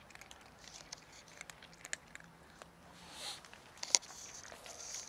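Cats crunching dry kibble, a scatter of small irregular clicks and crackles, with one sharper click about four seconds in.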